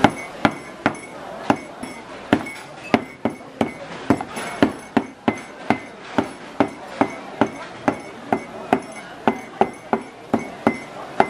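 Knife chopping live octopus into small pieces on a plastic cutting board, a steady run of sharp chops about two or three a second.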